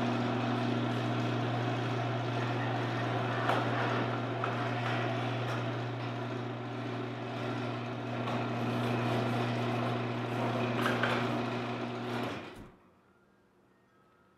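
Steady electrical machine hum with a low drone and a hissing wash over it, cutting off abruptly about twelve seconds in.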